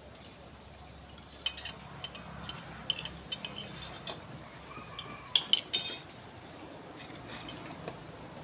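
Metal spoons clinking against ceramic bowls and plates during a meal, in scattered light taps, with the loudest few clinks about five to six seconds in.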